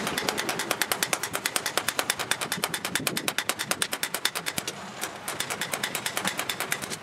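Hand hammer striking a red-hot spring-steel blade on a small steel post anvil: a fast, even run of sharp metal-on-metal blows, about eight a second, with a brief lull about five seconds in.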